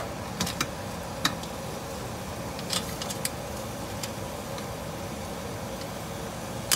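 Steady mechanical hum with a few light clicks and taps of a live crab's shell and legs against a steel steamer pot, scattered through the first half.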